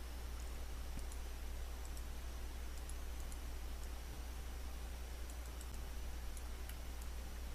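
Faint computer mouse clicks, scattered and irregular, over a steady low electrical hum and hiss from the recording setup.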